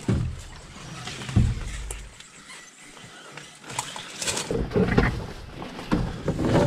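Heavy footsteps and hard breathing of a man carrying a canoe overhead on a portage trail, with branches brushing and scraping against the hull. There are two heavy thuds in the first second and a half, and the breathing and rustling grow busier in the second half.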